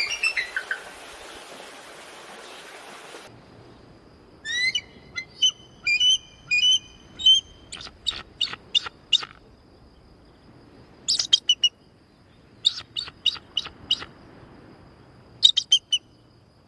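Eagle calling: short, high, piping notes in several quick bursts, with a steady hiss underneath at first.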